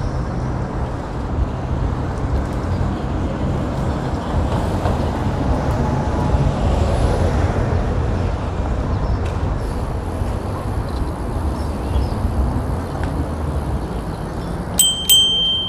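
Steady wind and road rumble on an action camera's microphone while cycling along a city bike lane beside traffic. Near the end, two sharp, high, ringing strikes come close together, like a bicycle bell rung twice.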